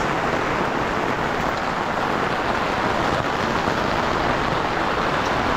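Heavy rain falling: a steady, even hiss that does not let up.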